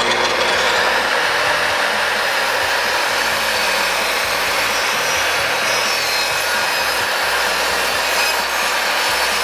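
15-amp sliding miter saw running steadily at full speed while its blade cuts down through a piece of plywood.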